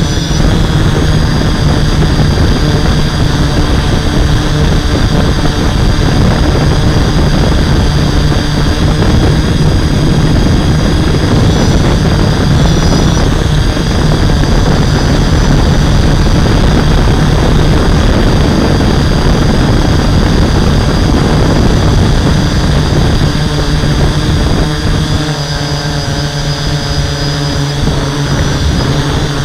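Hexacopter's six brushless motors and 11x5.5 propellers running steadily in flight, heard close from the camera on board as a loud steady drone and hum with air rushing over it. The pitch and level ease slightly near the end.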